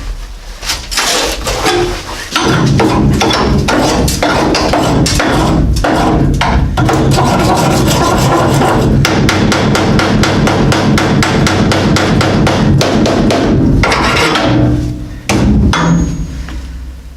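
Rapid, evenly paced hammering on sheet-metal car body panels, starting about two seconds in and running steadily until a couple of seconds before the end, with a short extra burst after it.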